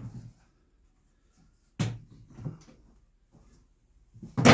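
Two sharp knocks from the wooden bag-board pieces being handled on the bench, about two and a half seconds apart, the second louder, with a few fainter clunks between.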